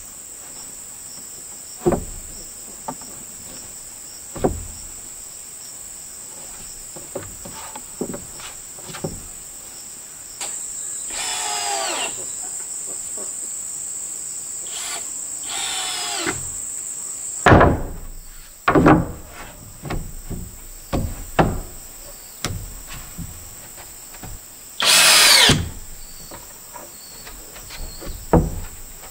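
Short runs of a cordless drill whining, three times, the last and loudest near the end, with scattered knocks of wood in between, over a steady high drone of insects.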